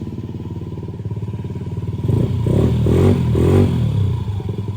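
Honda Ruckus 49cc four-stroke single idling through a Beams R-Evo aftermarket exhaust with its silencer insert removed, then given three or four quick throttle blips about two seconds in before settling back toward idle.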